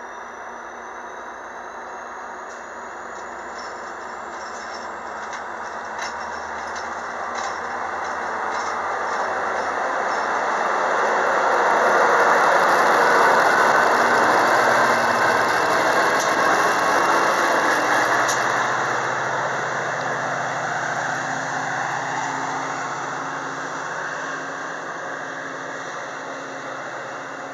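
Metra commuter train of bilevel cars pulling out of the station, with a rising whine and clicking wheels as it gathers speed. The train noise swells to its loudest about halfway through as it passes, then fades as it leaves.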